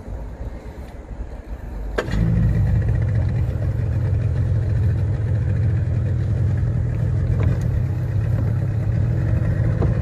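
A 30-horsepower two-stroke outboard motor starting about two seconds in and then running steadily.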